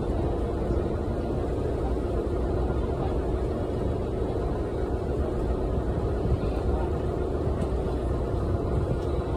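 A river boat's engine running steadily: a constant low drone with one steady note, mixed with the rush of water and wind as the boat moves along.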